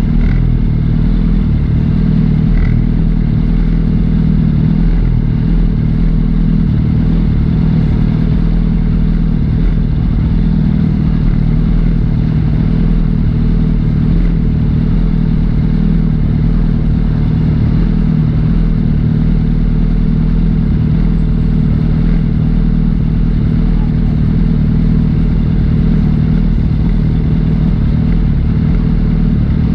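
Liter-class sportbike engine running at a steady cruise, its pitch holding level with no revving or gear changes.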